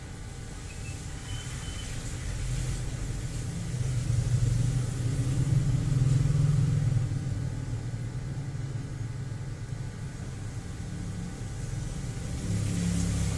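A low rumble that swells about four seconds in, eases off after about seven seconds, and rises again near the end.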